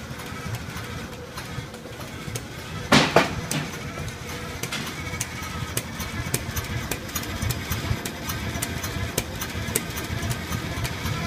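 Farmall Cub's small four-cylinder engine idling steadily on its newly fitted Pertronix Ignitor electronic ignition, with a brief loud noise about three seconds in.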